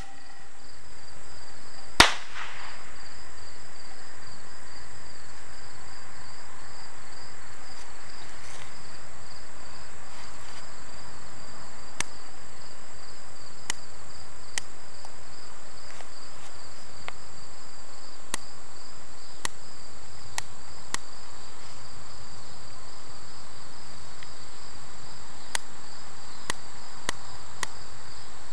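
A single sharp firework bang about two seconds in, with a short ringing tail, typical of an aerial shell bursting after being fired from a mortar tube. Then steady, pulsing cricket chirping, with faint clicks later on as a utility lighter is sparked at the next fuse.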